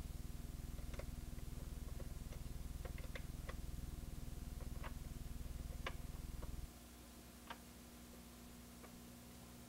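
Scattered soft metallic clicks and ticks of a 1/4-inch end wrench turning the nuts on a Tektronix 475 oscilloscope's transistor bracket, over a low hum that drops away about two-thirds of the way through.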